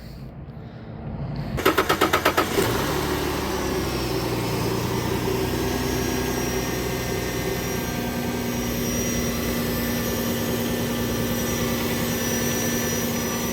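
2007 Chrysler Pacifica's V6 engine cranked by the starter with a fast, even chatter about a second and a half in; it catches about a second later and settles into a steady idle.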